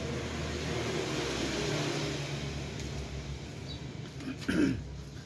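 A motor vehicle engine running past, a steady low hum whose pitch wavers up and down. A brief louder knock comes about four and a half seconds in.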